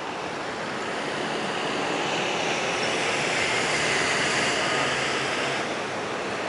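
Distant city traffic noise: a steady wash that swells for a few seconds midway and eases off near the end.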